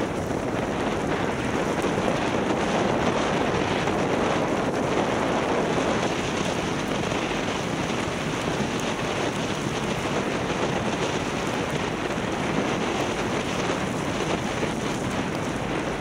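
Steady rush of wind on the microphone of a bicycle riding through snow, mixed with the hiss of the tyres rolling through wet slush on the road.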